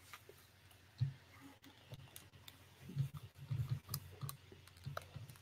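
Faint scattered clicks and a few soft low knocks of hands working a computer mouse and keyboard at a desk.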